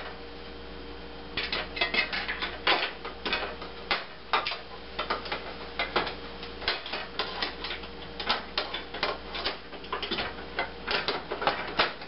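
Electric range coil burner element and metal drip pan clinking and rattling as the replacement element is fitted into its receptacle and seated in the pan: a run of irregular light metallic clicks and taps.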